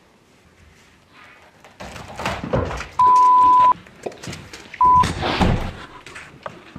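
Two loud, steady censor bleeps, one lasting about three-quarters of a second and a shorter one a second later, set over loud knocking and jostling noise.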